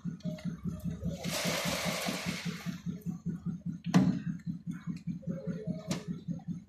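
A small engine running with a steady low beat, about eight beats a second, under a rushing hiss that lasts about a second and a half. A sharp knock about four seconds in, the loudest sound, and a lighter one about two seconds later.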